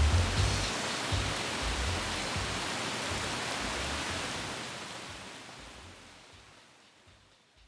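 Rain sound effect: a steady, dense hiss of falling rain that fades out over the last few seconds, with low rumbling pulses near the start.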